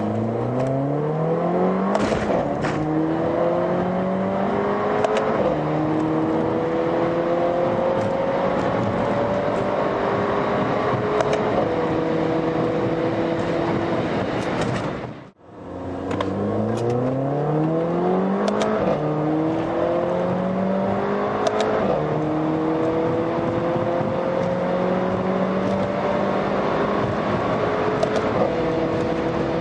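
Mercedes-AMG A 45's turbocharged 2.0-litre four-cylinder at full throttle, heard from inside the cabin. The revs climb through the gears, falling at each quick upshift of the seven-speed dual-clutch gearbox, about three shifts per pull. There are two such pulls, the second starting after a sudden cut about halfway.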